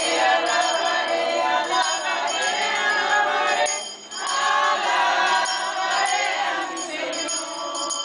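A crowd of people singing a hymn together as they walk, with a short break between phrases about four seconds in.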